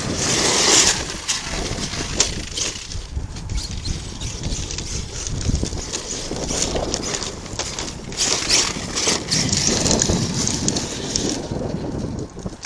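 Wind gusting on the microphone over an ARRMA Kraton 8S electric RC monster truck running on dirt, with tyre crunch and knocks; the gusts swell at the start and again a few seconds before the end.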